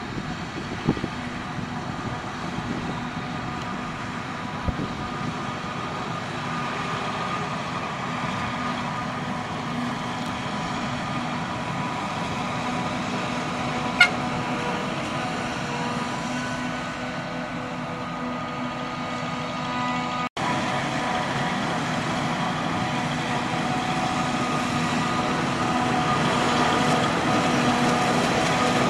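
Claas Jaguar self-propelled forage harvester running under load in maize, a steady engine and machine drone with a few held tones that slowly grows louder. There is a single sharp tick about halfway through.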